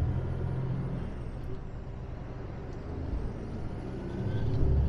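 Mercedes-Benz Actros truck's diesel engine running under way, heard from inside the cab with road noise; the low engine drone eases off in the middle and builds again near the end.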